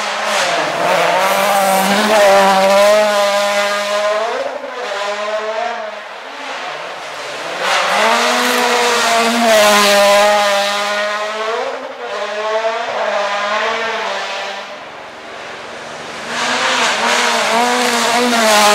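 1.6-litre turbocharged four-cylinder World Rally Car engines, a Toyota Yaris WRC among them, revving hard, the pitch climbing and dropping through gear changes as the cars pass at stage speed. There are three loud passes, roughly eight seconds apart.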